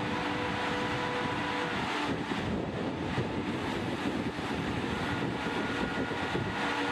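RENFE class 250 electric locomotive running past at low speed: a steady mechanical hum with several held whining tones from its motors and blowers, over the rumble of wheels on rail. The tones fade for a few seconds in the middle while the rumble grows, then come back.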